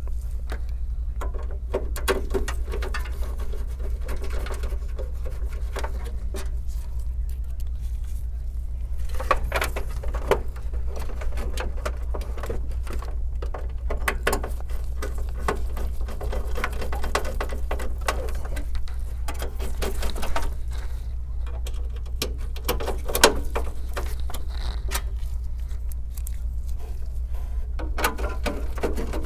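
Irregular small clicks, taps and scrapes of hands working inside a metal desktop PC case, driving motherboard screws with a precision screwdriver and handling the cables. A steady low hum runs underneath.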